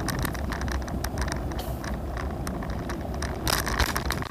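A scooter without suspension rolling over pavement: a steady low rumble with quick rattling clicks.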